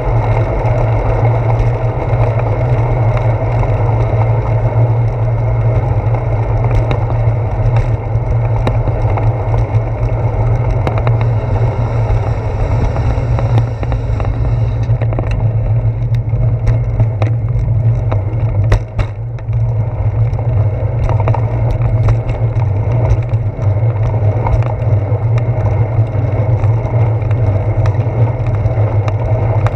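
Bicycle riding along a damp paved path, heard through a handlebar-mounted GoPro Hero 4: a steady low rumble of wind and road vibration, with scattered sharp clicks and knocks from about halfway on.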